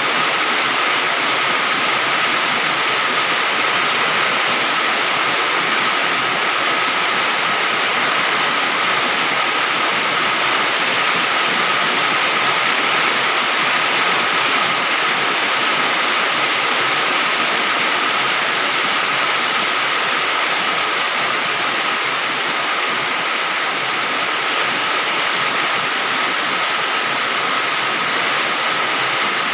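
Rain falling on galvalume metal roofing sheets: a dense, steady hiss of countless drops striking the metal, with no let-up or change.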